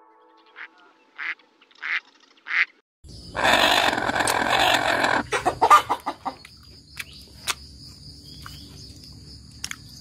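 Four short duck calls, spaced about two-thirds of a second apart. Then, about three seconds in, a louder harsh sound of about two seconds, followed by scattered clicks and a steady high-pitched chirring that carries on.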